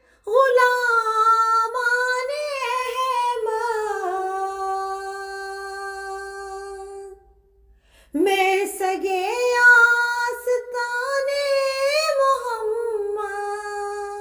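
Solo voice singing an Urdu naat, a devotional song in praise of the Prophet Muhammad, unaccompanied, in two long melismatic phrases with a short pause about seven seconds in.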